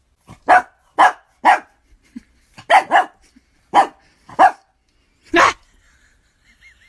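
A dog barking about eight times in short sharp barks, the last one longer.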